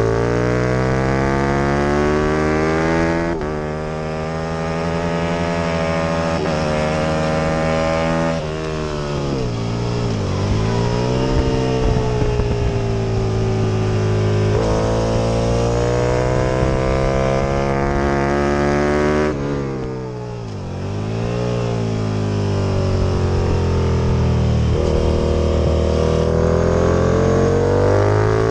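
First-generation Aprilia RSV Mille's V-twin race engine under hard acceleration, revs climbing and dropping back briefly at each upshift. Twice the revs fall away as the bike slows for a corner, then build again through the gears.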